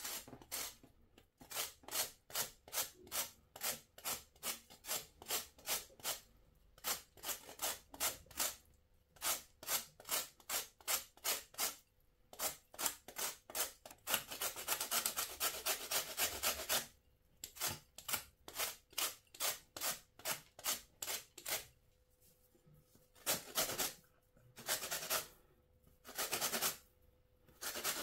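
Lemon peel being zested on a flat stainless-steel grater: repeated scraping strokes, about two to three a second, broken by a few short pauses, with a stretch of faster, continuous grating about halfway through.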